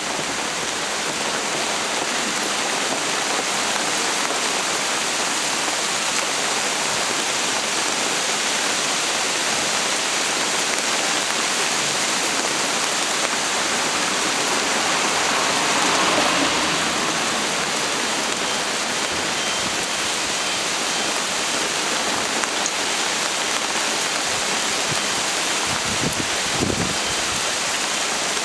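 Small hailstones pelting wet asphalt and pavement: a dense, steady hiss that swells a little about halfway through.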